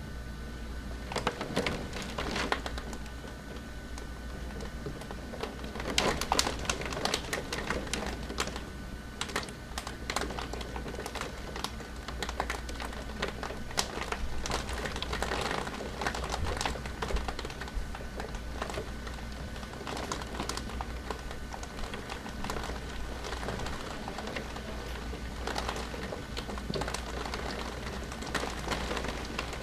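Large storm raindrops striking a window pane in irregular taps, growing thicker and louder about six seconds in.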